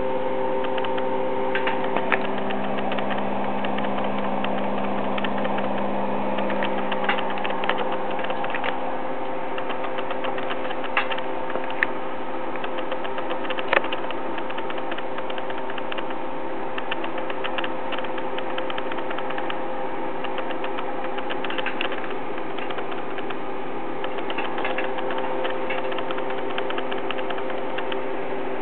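Rewound 7.5 kW AC induction motor running slowly on a homemade IGBT inverter with 300 Hz PWM, in a low-voltage test off a 12 V bench supply. It gives a steady multi-tone electrical hum, whose mix of tones shifts a few times, with scattered sharp ticks throughout.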